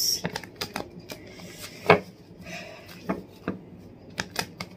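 A deck of tarot cards being shuffled overhand by hand: the cards snap and slap together in short, irregular clicks, the loudest about two seconds in.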